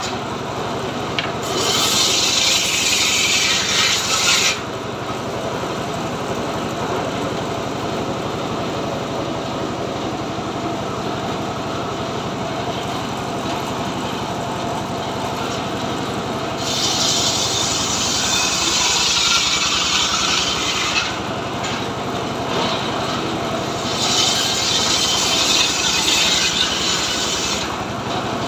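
Homemade engine-driven circular saw bench ripping a hardwood log lengthwise: the engine and blade run steadily throughout, and the harsh hiss of the blade biting through the wood comes in three cuts, briefly near the start and for several seconds twice in the second half.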